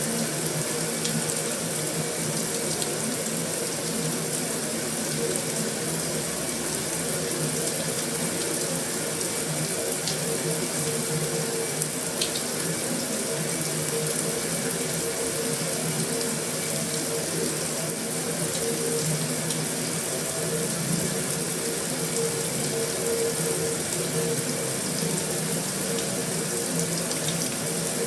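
Heavy rain drumming steadily on a metal roof: a dense, even hiss with occasional sharper drop hits.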